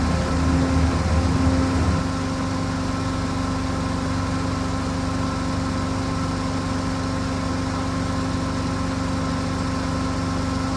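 An engine running steadily, its pitch and level dropping slightly about two seconds in and then holding at an even idle-like drone.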